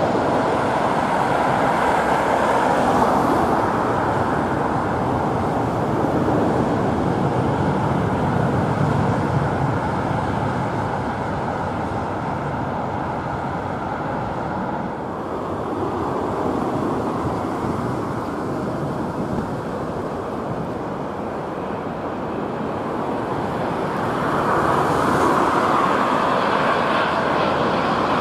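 Steady rumble of a landing Airbus A380's jet engines mixed with road traffic noise. The rumble eases a little about halfway and swells again near the end.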